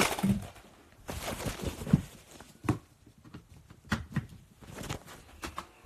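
Handling noise from a phone being moved about: scattered knocks, bumps and rustles against the microphone, several sharp knocks a second or so apart.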